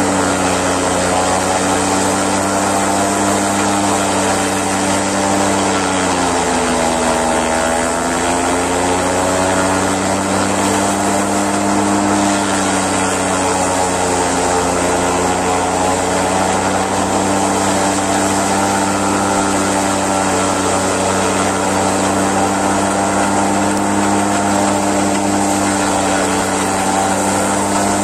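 Massey Ferguson tractor engine running steadily, driving a forage chopper that is being fed napier grass. About six seconds in the engine note sags for a couple of seconds, then recovers.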